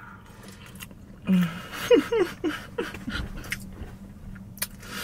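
Chewing a mouthful of baked macaroni, with a few short hummed "mmm" sounds of enjoyment about a second in and wet mouth clicks throughout.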